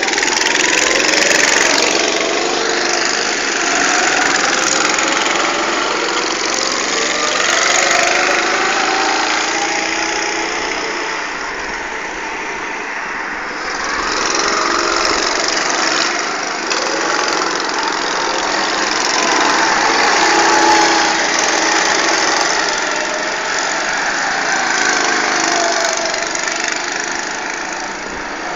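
Several go-kart engines running on a track, revving up and easing off as the karts pull away and lap, their pitch rising and falling again and again as they come and go.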